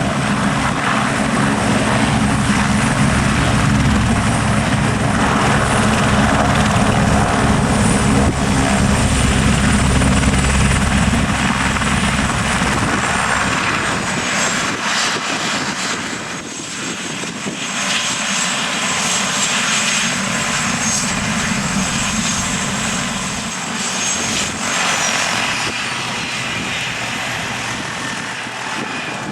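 Eurocopter AS350 helicopter running: the rotor's deep rhythmic beat is heavy for the first half and fades about halfway through, leaving the turbine's high whine, which steps down in pitch twice.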